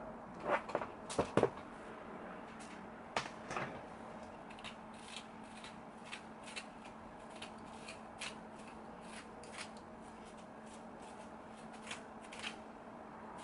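Handling noises of a plastic comb being worked through synthetic wig hair. A few sharp clattering knocks come in the first four seconds, then lighter ticks and rustles follow, over a faint steady hum.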